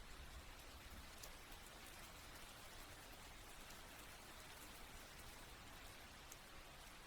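Faint, steady rain: an even hiss with scattered individual drops ticking through it.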